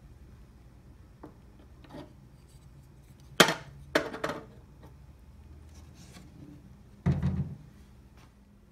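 Hinged glass front of a walnut display case being handled and shut: two sharp clicks from the hardware about three and a half seconds in, then a dull thud about seven seconds in as the glass front closes against the wooden frame.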